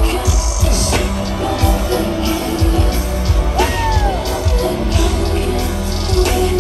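Loud live concert music with a heavy bass beat, heard from within the crowd.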